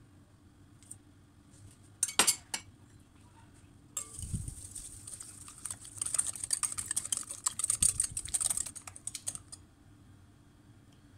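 A fork beating eggs and sugar in a glass bowl: quick, rapid clicking of the metal fork against the glass for about five seconds, stopping near the end. A couple of sharp clinks of a metal spoon on the glass come about two seconds in.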